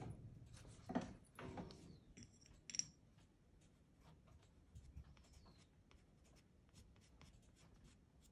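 Soft pastel stick scratching and rubbing across textured pastel paper in short, faint strokes, with a few louder knocks and a light clink in the first three seconds.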